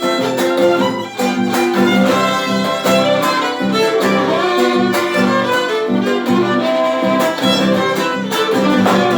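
Instrumental Argentine folk music in gato rhythm: a bowed violin melody over steadily strummed guitar.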